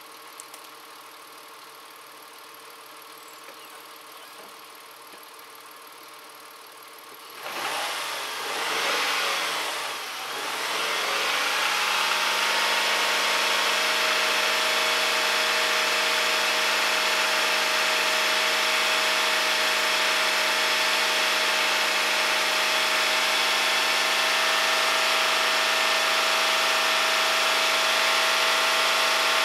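Ford 3910 tractor engine cold-started after sitting unused for a month: quiet for the first seven seconds, then cranking and catching with the pitch wavering for a few seconds, then settling into a steady idle.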